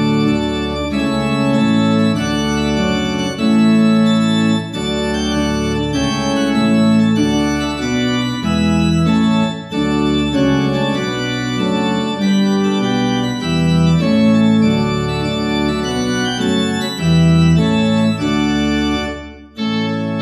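Two-manual church organ playing slow, sustained chords that change every second or so, with a short break between phrases near the end.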